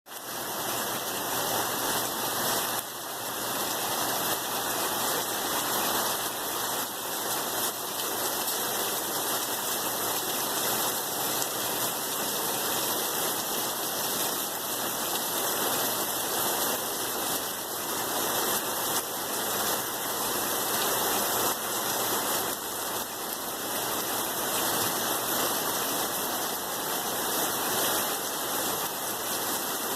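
Steady rain falling, a continuous even hiss of water with no single drops standing out.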